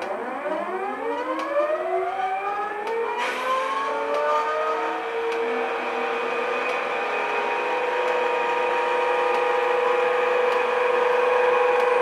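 ESU sound decoder in an OO-gauge Class 92 model locomotive playing the electric locomotive's whine: a stack of tones sweeps up in pitch over the first few seconds like a siren, then settles into a steady whine. A hiss joins about three seconds in.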